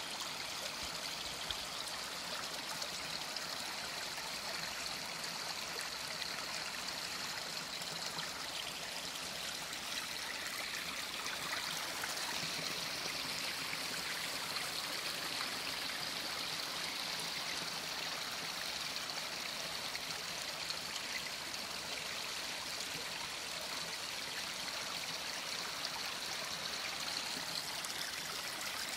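Small forest stream running over rock slabs and between boulders: a steady rush of flowing water.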